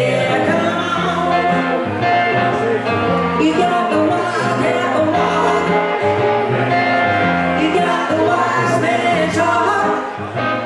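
Live blues band: a man singing over acoustic-electric archtop guitar and electric keyboard, with a bass line stepping from note to note underneath.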